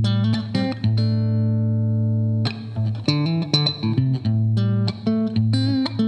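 Squier Affinity Series Telecaster electric guitar playing quick picked single notes over a ringing low note. A chord is left to ring for about a second and a half early on, then the picked line goes on.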